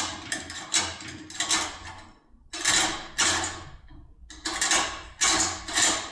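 Metal clicks and scrapes of a locksmith's tool handle being tightened and worked by hand, in quick runs of about two or three strokes a second with two short pauses.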